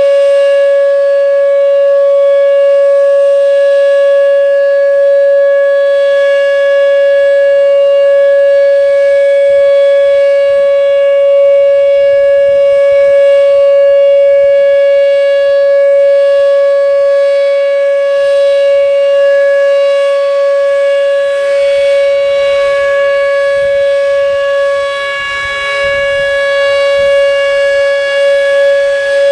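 Whelen WPS-2807 electronic storm siren sounding its steady Alert tone at 560 Hz, one unbroken tone rich in overtones, dipping briefly in loudness near the end.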